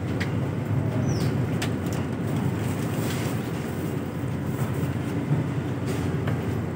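Steady low rumble of a vehicle in motion, with a few light clicks and rattles and one short falling squeak about a second in.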